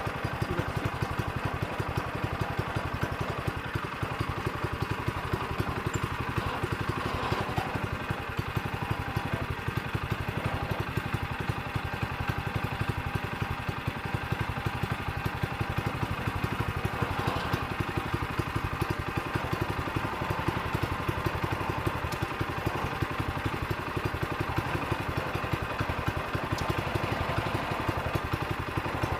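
Sawmill engine running steadily as the mill makes a cut through a log.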